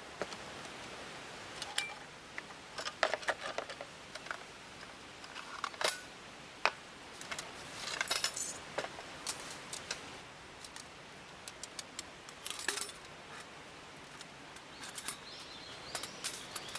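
Small hard objects clicking and clattering in quick irregular clusters, like metal camping gear being handled, over a steady background hiss.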